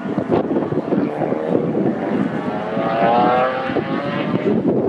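A piston engine running somewhere past the microphone, its pitch rising for a moment about three seconds in, over steady background noise.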